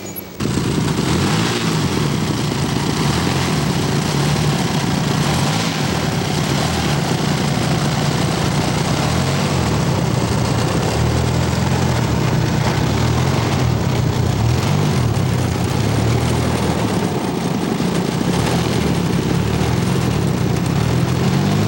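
Large radio-control model airplane engine running steadily on the ground, its speed wavering slightly up and down.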